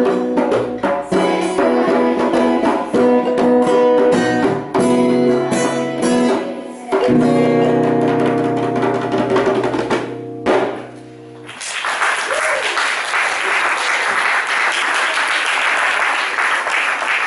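Group singing a Ghanaian folk song with djembe and balafon, drum strokes running under the tune, then closing on a long held final chord about seven seconds in that stops near ten and a half seconds. Applause starts about twelve seconds in and carries on.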